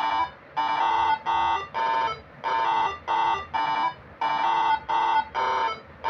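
Bus-style air horn driven by a Moreno MS7 melody module, playing tune 12 (C) as a rhythmic series of short horn blasts, about two a second.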